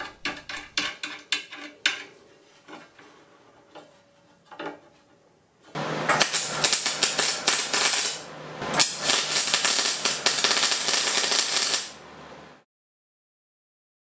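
Light metal clinks and taps as steel parts are set in place, then a MIG welder's arc crackling steadily in two runs, about two and a half and three seconds long with a short break between, as nuts are welded to 1/4-inch steel plate.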